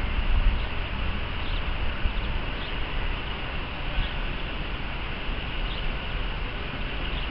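A steam train fading away into the distance, its rumble dropping off in the first half-second and then holding low under a steady rush of wind. Faint bird chirps come in now and then.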